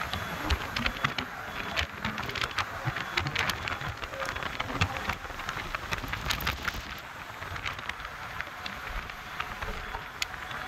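Road and wind noise at highway speed alongside a passing bus, with frequent crackles and clicks from wind buffeting the phone microphone.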